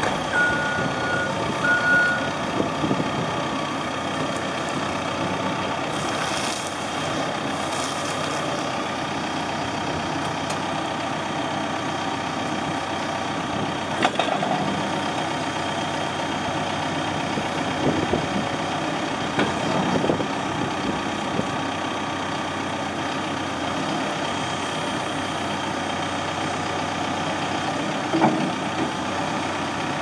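Cat 420F backhoe loader's four-cylinder diesel engine running steadily while the backhoe boom and stabilizer leg are worked hydraulically, with a few clunks along the way. Two short beeps come near the start.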